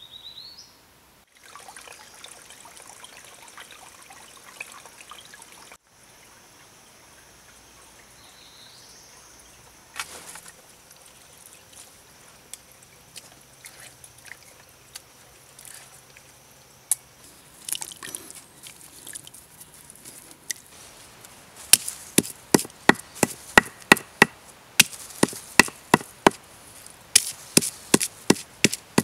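A hand-held stone pounding small lumps on a flat stone slab, a rapid series of sharp knocks about two to three a second, starting about two-thirds of the way in. Before that there is faint trickling water from a seep.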